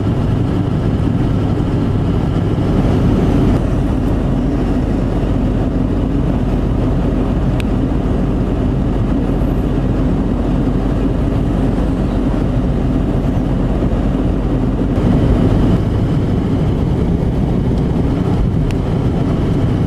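Steady engine and tire noise of a vehicle driving on a snow-covered road, heard from inside the cabin: an even low rumble with hiss above it.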